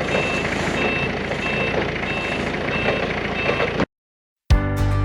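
Heavy machine's reversing alarm beeping steadily, about three beeps every two seconds, over its running diesel engine. It cuts off suddenly near the end, and after a short silence music starts.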